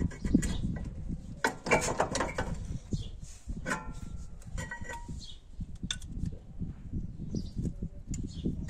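Metal clinks and rattles of a disc brake caliper and its pads knocking against the brake disc as the caliper is handled and offered up, in two busy clusters about one and a half and four seconds in, some clinks ringing briefly. A steady low rumble runs underneath.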